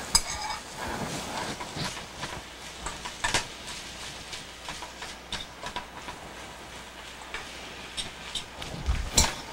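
A metal spoon clinking and tapping against a metal muffin tin and a mixing bowl as filling is spooned into biscuit cups. There is a short ringing clink right at the start and a cluster of sharper knocks near the end.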